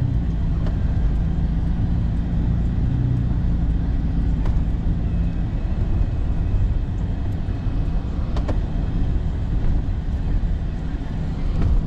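Engine and road noise heard inside the cabin of a moving vehicle: a steady low rumble, with a few faint clicks.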